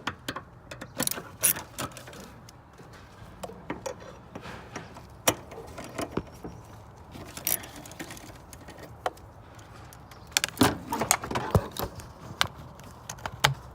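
Hand tools working 10 mm bolts loose on a metal housing in a car's engine bay: irregular ratchet clicks and metal clinks, busiest about a second in and again near the end.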